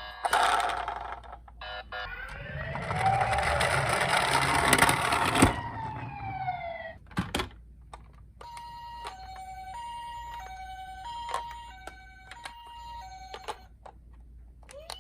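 Toy ambulance minicar sirens: an electronic wail rises and falls over several seconds with a low rumble under it, followed by a couple of sharp clicks. Then comes a steady two-tone hi-lo siren, the alternating pattern of a Japanese ambulance.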